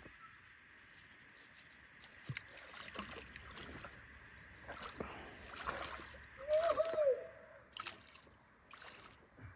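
Water splashing and sloshing in irregular bursts as a person wades into a muddy river. There is a brief arching pitched cry about seven seconds in.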